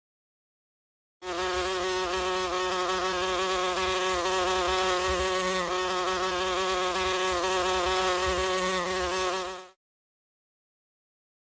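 A flying insect buzzing steadily for about eight seconds, its pitch wavering slightly, then cutting off.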